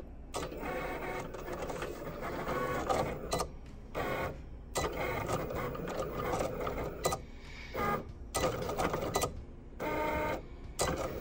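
Cricut cutting machine cutting a design out of vinyl: its motors whir in spurts, changing pitch, with several short pauses as the blade carriage and mat shift back and forth.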